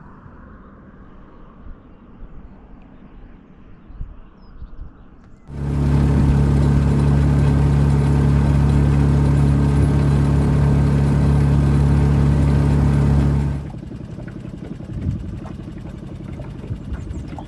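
A boat's outboard motor running steadily at speed, loud, cutting in suddenly about five seconds in and cutting out just as suddenly about eight seconds later; quieter background before and after.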